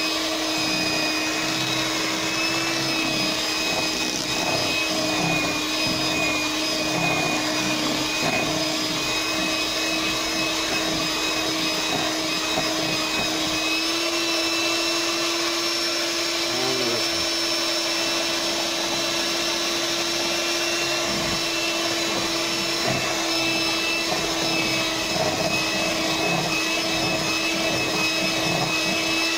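Electric mixer running steadily as it beats cheesecake batter while eggs are added, a constant motor whine whose pitch steps up slightly about halfway through.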